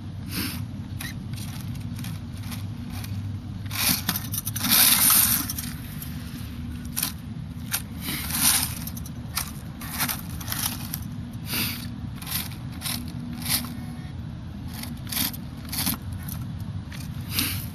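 Dry leaves and pine needles crunching and scraping in short, irregular bursts as a small XMOD RC truck crawls through them. The loudest stretch comes about four to six seconds in. A low steady hum runs underneath.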